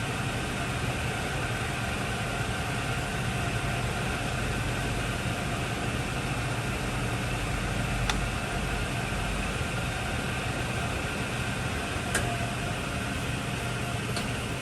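1985 Hardinge HLV-H toolroom lathe running steadily under power with its spindle turning and the lead screw engaged for threading, giving an even machine hum. Two short clicks come a few seconds apart in the second half.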